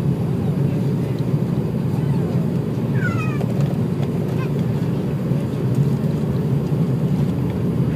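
Steady, loud engine and airflow noise inside the cabin of an Airbus A340-300 airliner. About three seconds in there is a brief high-pitched falling squeal, and a shorter one about a second later.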